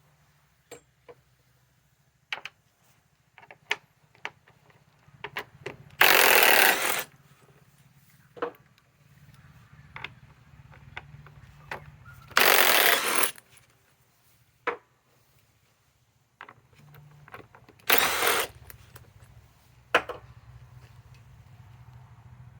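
Masterforce Boost cordless impact driver hammering in three short bursts of about a second each, driving fasteners into wood. Short clicks and knocks come between the bursts.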